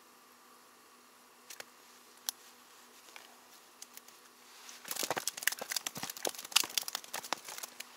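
Freshly caught ripus (vendace) flapping among other fish in a bucket: a dense run of quick wet slaps and rustles starting about five seconds in, after a couple of faint ticks.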